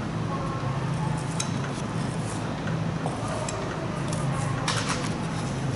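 Thin-bladed knife cutting the meat out between pork rib bones on a wooden cutting board: soft rubbing and scraping, with a few faint clicks in the middle and near the end, over a steady low background hum.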